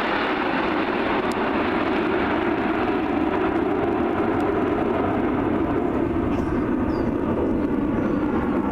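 Steady jet noise of the Snowbirds' nine CT-114 Tutor jets flying overhead in formation, a continuous rushing sound with a faint slow sweep in its upper tone.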